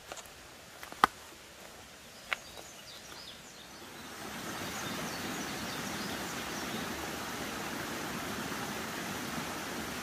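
Outdoor rural ambience: a loud sharp click about a second in and a smaller one a little over a second later, then a steady rushing hiss that builds up about four seconds in and holds.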